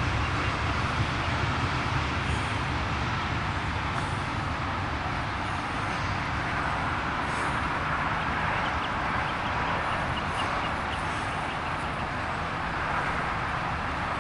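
The last hopper cars of a loaded coal train rolling away on the rails: a steady rumble and rail noise that slowly fades as the train recedes.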